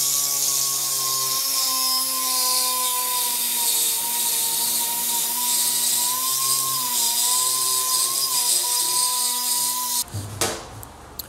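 Cordless drill running under load, drilling a hole through a brace: a steady whine whose pitch sags and recovers, over a hiss, cutting off suddenly about ten seconds in.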